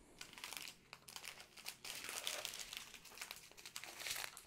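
Thin plastic bags of square diamond-painting drills crinkling and rustling as strips of them are handled and lifted, an irregular crackle with small clicks.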